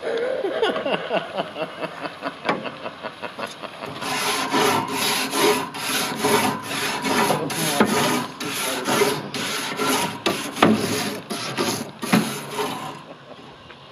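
Wire grill brush scrubbing the grates of a hot gas grill, in quick back-and-forth scraping strokes that get heavier partway through and stop about a second before the end.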